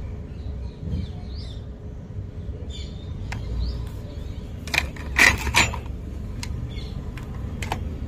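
A few sharp clicks and light knocks from small hard parts being handled, loudest in a cluster about five seconds in. Faint birds chirp in the background early on.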